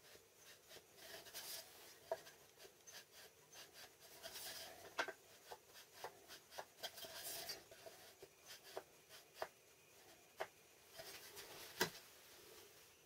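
Faint handling noises: light rubbing and scattered small taps as an aluminium square and a cut piece of coated MDF are held and shifted against each other, with one sharper tap near the end.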